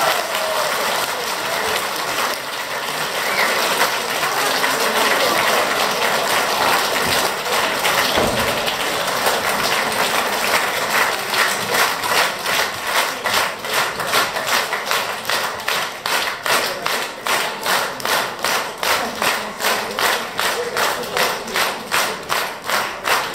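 Audience applauding after the music ends. About halfway through, the applause turns into rhythmic clapping in unison, a little over two claps a second.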